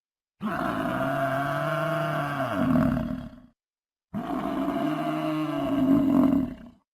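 Gaur (Indian bison) bellowing: two long, deep calls, each about three seconds, getting louder toward the end before breaking off.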